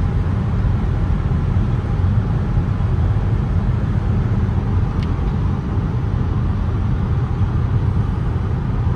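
Steady low rumble of road, tyre and wind noise inside the cabin of a Volvo XC60 D5 diesel cruising at about 140 km/h.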